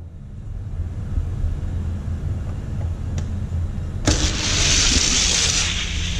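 Starting gate of an orange plastic Hot Wheels drag track clicking open about four seconds in, then two die-cast cars rolling down the plastic track with a loud rushing whir. A low rumble runs underneath before the release.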